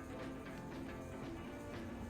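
Quiet background music with steady held notes.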